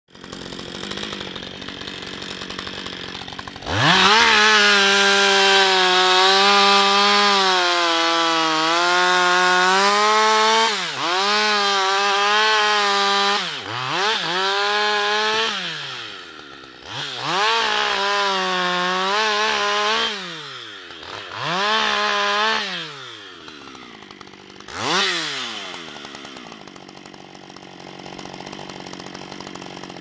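Husqvarna 560XP two-stroke chainsaw idling, then opened to full throttle about four seconds in and cutting into a tree trunk, its pitch sagging under load. The throttle is released and opened again several times, with a short rev near the end before it drops back to idle.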